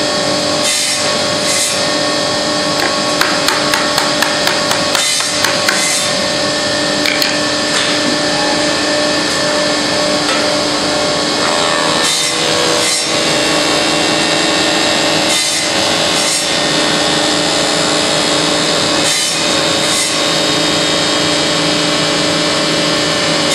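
Acrylic edge diamond-polishing machine running steadily, its motor giving a constant whine under a loud hiss as acrylic strips feed through past the cutter. A quick run of sharp clicks, about two a second, comes a few seconds in.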